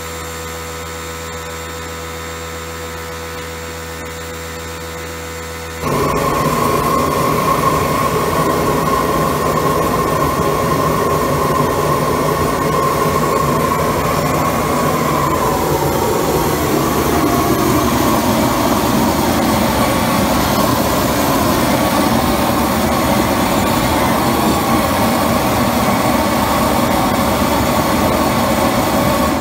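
Pressure washer steam cleaner with a torch-heated mono-tube boiler: a steady hum, then about six seconds in a sudden, much louder rushing hiss of steam and hot spray jetting from the nozzle. A whistle in the hiss fades out about halfway through.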